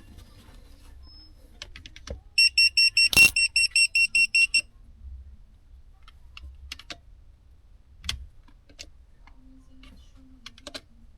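A rapid run of high electronic beeps, about six a second for two seconds, with a sharp click among them; faint scattered clicks and taps before and after.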